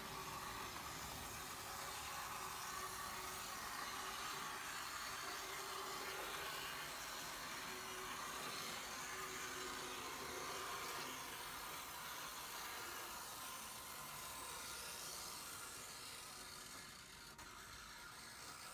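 Steady whir of an N scale Class B Shay model locomotive's Searails PowerMAX power truck motor and gearing as it runs along the track, over a steady hiss; the whir eases a little near the end.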